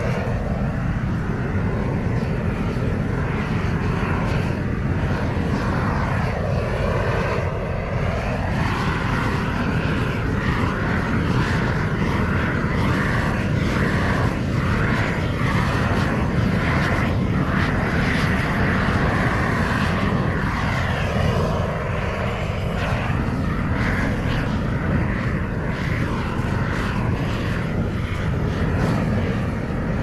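A steady, loud mechanical drone like an engine running, its tone slowly sweeping up and down.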